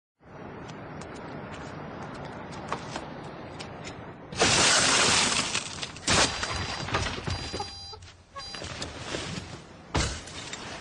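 Glass shattering in one loud crash about four seconds in, typical of a car window being smashed, followed by a few sharp knocks and thuds.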